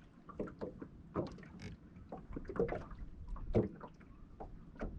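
Scattered faint knocks and clicks in a small fishing boat, coming irregularly over a quiet background.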